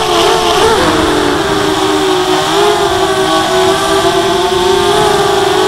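The four RCTimer 2300kv brushless motors and 5x3 props of a ZMR250 quadcopter, heard from the onboard camera, whining steadily. In about the first second and a half the whine wavers and splits into several pitches as the motors change speed coming out of a fast roll, then it holds fairly steady.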